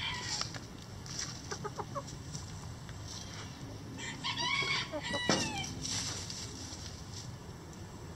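Backyard chickens clucking, with a longer, rising-and-falling call about four to five and a half seconds in.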